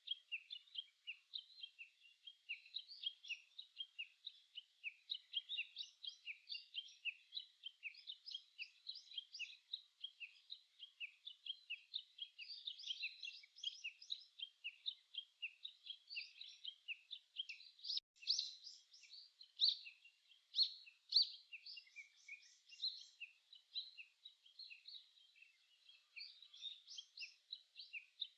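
Many small birds chirping and singing at once in a dense, continuous chorus of short high notes, with a few louder calls near the middle.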